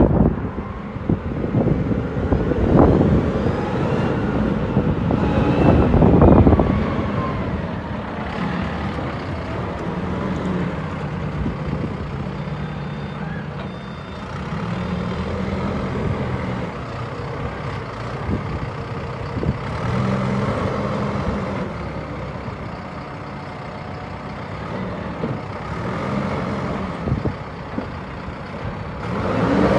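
Caterpillar TH406AG telehandler's turbo diesel engine running as the machine drives and lifts its boom, the engine note rising and falling with the throttle. Wind buffets the microphone in the first few seconds, when it is loudest.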